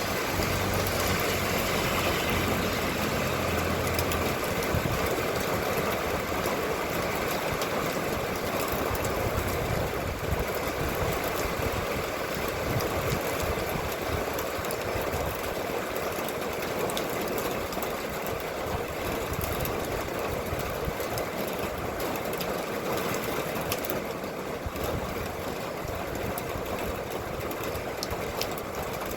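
Steady rain falling, a dense even hiss with many small drop ticks through it.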